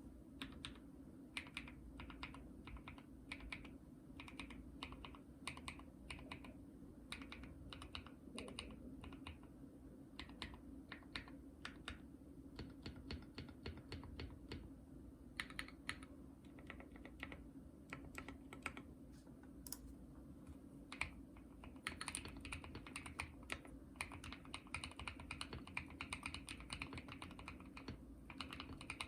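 Typing on a Monsgeek M2 mechanical keyboard with Akko Blueberry switches and PBT MDA-profile keycaps: a run of irregular key clacks that grows denser and faster about three quarters of the way through.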